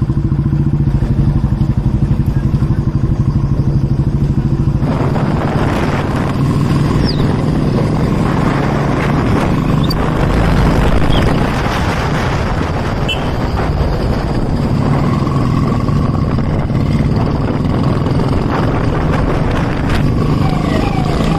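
Royal Enfield Bullet motorcycles, single-cylinder engines, pulling away with an even pulsing engine beat for the first few seconds. Then a broader rushing noise as the bikes ride along at road speed.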